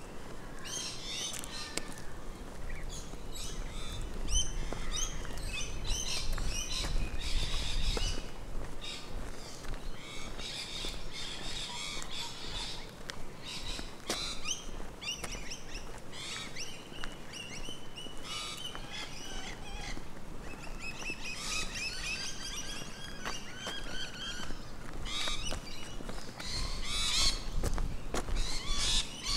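Several wild birds chirping and trilling at once, a busy dawn-chorus-like mix of short repeated calls. A low rumble rises under them for a few seconds about four seconds in and again near the end.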